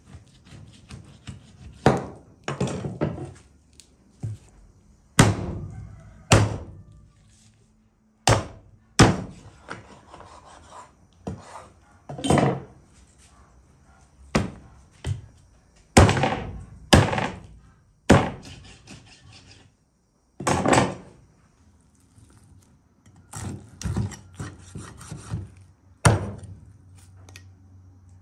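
Knife and beef rib roast knocking against a wooden cutting board while the roast is cut into rib steaks: about a dozen irregular thunks, with rubbing and scraping between them.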